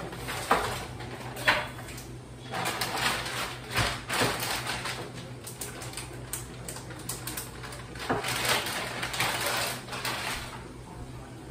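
Kitchen handling sounds: a plastic food package rustling, with a few sharp knocks against the counter, over a steady low hum.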